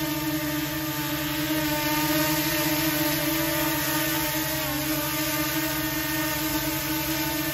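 Small quadcopter drone hovering close by, its propellers giving a steady buzzing whine. The pitch dips briefly a little before the middle and then comes back up as the motors adjust.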